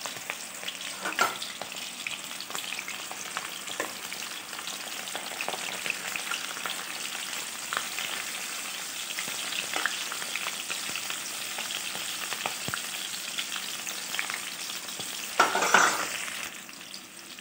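Food deep-frying in hot oil in an aluminium kadai: a steady crackling sizzle, with a brief louder clatter near the end.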